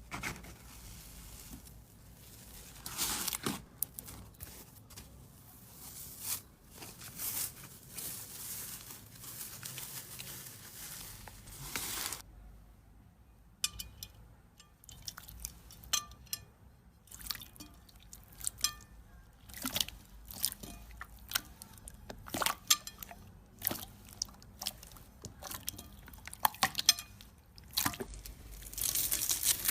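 Slime being squeezed and poked, making irregular wet clicks, pops and squishing sounds.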